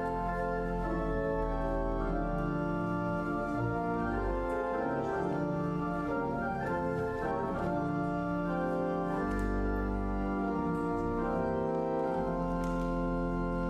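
Church organ playing slow, sustained chords, with the bass line moving stepwise beneath held notes.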